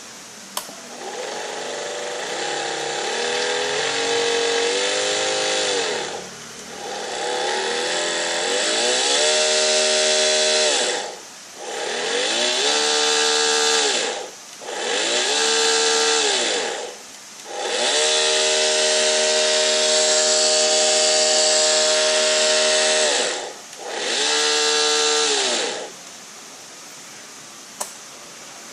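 Electric drive motor of an Armortek 1/6-scale Tiger I model tank running in about six spurts, each whining up in pitch, holding and winding down, with a harsh hiss over the whine. It is run to test a noise the owner reports as abnormal.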